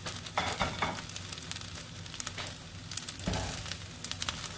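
Fried rice noodles sizzling and crackling in a stainless steel pan on the heat. There are louder stirring and tossing noises about half a second in and again a little after three seconds.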